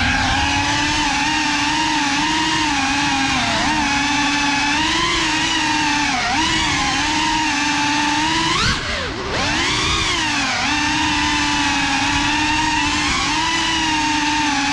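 Motors and propellers of a GEPRC CineLog 35 cinewhoop quadcopter, a 3.5-inch drone, whining steadily, the pitch wavering with throttle. About nine seconds in, the pitch and level drop sharply and then climb back.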